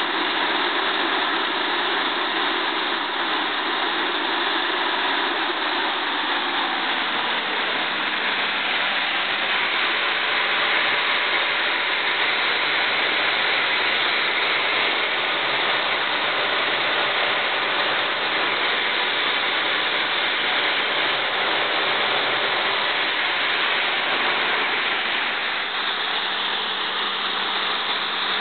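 Overhauled Lycoming T53-L-13B gas turbine running steadily on its first run after overhaul: a loud, even rushing noise with no change in speed.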